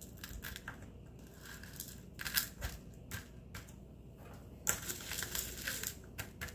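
Fingers, and then a small tool, pressing and poking into slime topped with tiny polymer-clay sprinkles in a plastic tub. The pieces give crunchy, crackling clicks, with the busiest stretches about two seconds in and again around five seconds.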